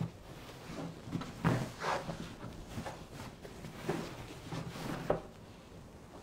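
Handling noise: irregular soft knocks and rustles as a woven blanket on a couch is moved by hand. The loudest knocks come about a second and a half in and again about five seconds in.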